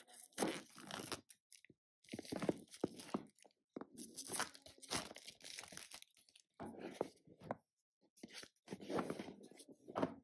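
Cardboard box and plastic wrapping being unwrapped and handled: crinkling, tearing and scraping in five bursts of about a second each with short pauses between.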